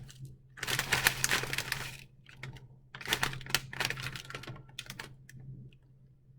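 Food packages and plastic containers being handled and shuffled, clicking and rustling in two main bursts of a second or so each, with a few smaller rattles between.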